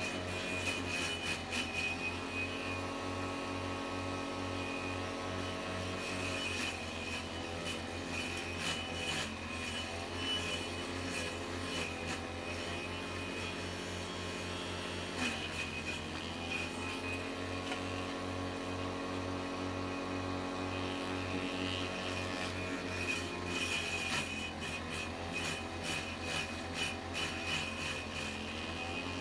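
Homemade vegetable chopper, a water-pump electric motor spinning a grass-cutter blade, running steadily with bursts of rapid chopping and rattling as vegetables go through it. The motor's hum dips in pitch under each load, several times.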